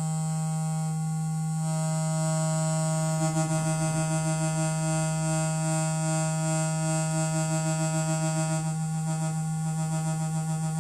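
ETI Transcendent 2000 analogue synthesizer sounding its raw oscillator output, unfiltered and without an envelope: a steady, buzzy low drone rich in overtones. A second, higher tone comes in about two seconds in, and from about three seconds the sound takes on a regular wobble.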